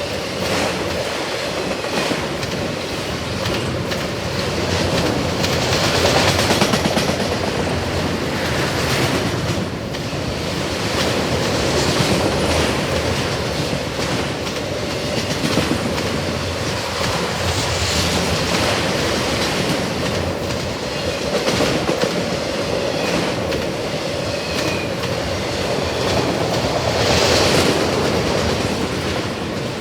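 Long freight train of autorack cars rolling past: a steady rumble with the clickety-clack of wheels over the rails, swelling and easing every few seconds.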